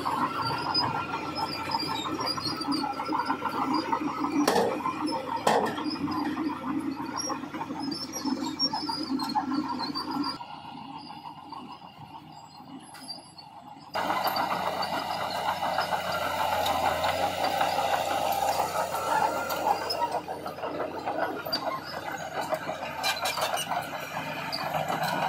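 Crawler bulldozer working, its engine running and its steel tracks squealing, with a few knocks. The sound drops away suddenly about ten seconds in and comes back loud about four seconds later.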